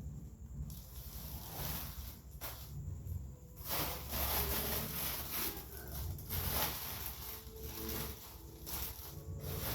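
Red and yellow cellophane paper being handled, crinkling and rustling in irregular bursts.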